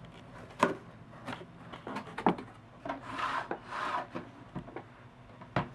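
Hard objects being handled and set down on a hard surface: a few sharp knocks and clicks, with a scraping, rubbing sound in the middle.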